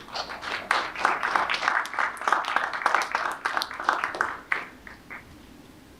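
Audience applauding, a burst of clapping that thins out and stops about five seconds in.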